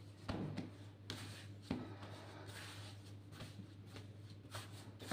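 Hands rubbing and pressing floured bread dough on a work surface: soft rustling with a few light knocks, over a steady low hum.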